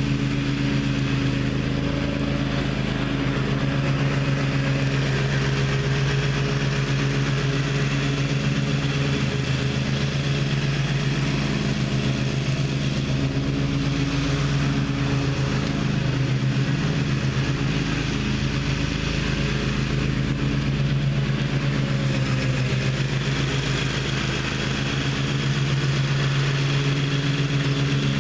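Gravely ZTX 42 zero-turn mower's engine running steadily at working speed, its pitch wavering slightly in the middle as the load changes.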